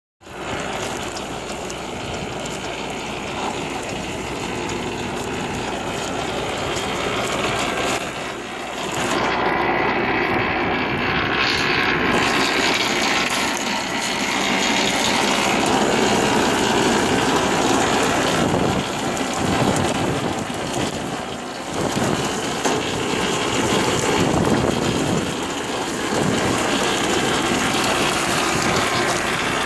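Tractor-drawn double-row potato harvester running, a steady mechanical noise from the engine and the digging and conveying gear, with short dips about eight and twenty-one seconds in.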